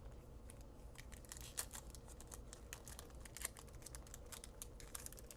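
A trading card pack's wrapper crinkling faintly with irregular small crackles as it is worked open by hand.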